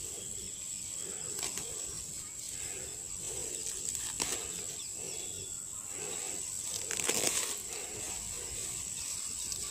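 Leafy weeds rustling as a hand picks leaves from them, with a few brief snaps and crackles of stems, the busiest stretch about seven seconds in.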